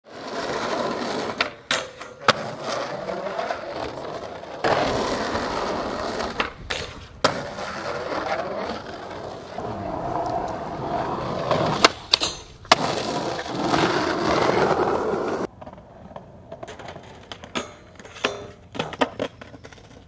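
Skateboard wheels rolling on concrete in several short stretches, broken by sharp clacks of the board hitting the ground. The last few seconds are quieter, with only scattered clicks.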